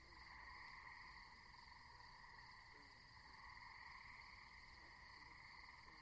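Faint, steady night chorus of frogs and insects.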